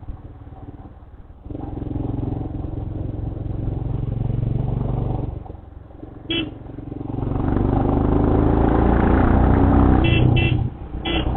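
Motorcycle engine on a hill climb: throttle eased off twice, then opened up about seven seconds in, the revs rising as it overtakes a car. Short horn toots, once just after the middle and three times near the end.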